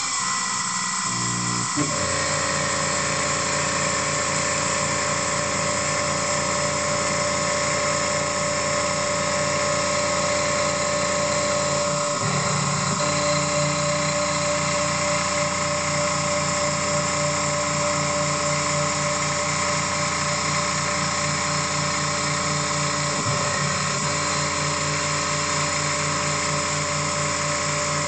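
EMCO F1 CNC milling machine's spindle running with a steady whine while a small end mill face-mills the top of a metal block. The sound briefly changes twice, about 12 and 23 seconds in.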